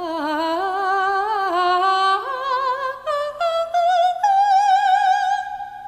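A woman's trained soprano voice singing a wordless 'la' passage with vibrato, climbing in steps to a long held high note that fades out near the end.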